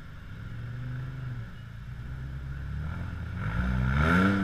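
Off-road competition buggy's engine running low and steady, then revving up hard near the end as the buggy climbs the rock step.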